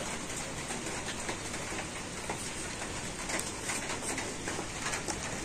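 Raw green papaya being peeled against a boti, the upright fixed blade of a Bengali kitchen: a steady run of small scraping, slicing strokes as the skin is shaved off.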